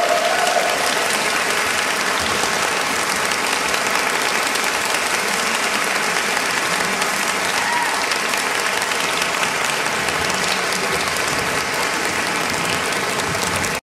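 Steady audience applause, with the held final chord of a women's four-part a cappella barbershop quartet dying away about half a second in.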